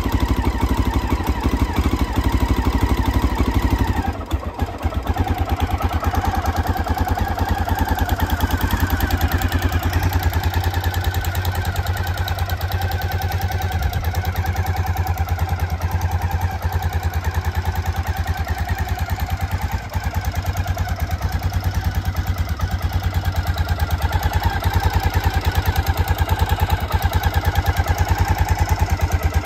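Honda XL600R's air-cooled single-cylinder four-stroke engine idling with an even, steady beat. It runs slightly higher at first and settles to a lower idle about four seconds in.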